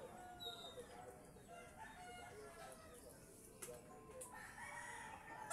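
Faint chickens calling, with a rooster crowing, in a series of short calls and a couple of brief clicks in the middle.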